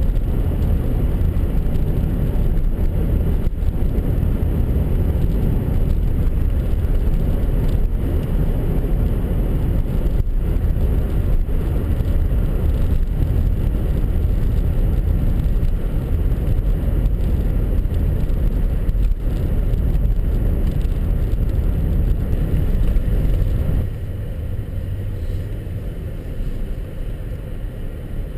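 Steady low rumble of a vehicle driving, road and wind noise, dropping to a quieter level about 24 seconds in.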